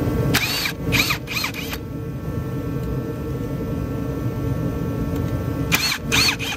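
Cordless power driver with a socket on an extension running steadily as it backs out the 10 mm oil pan bolts, with a few short high squeaks about half a second in and again near the end.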